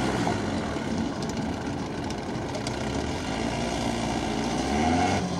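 NSU Kettenkrad half-track motorcycle's four-cylinder petrol engine running as it drives slowly on tarmac, its pitch rising and falling with the throttle and a short rev near the end.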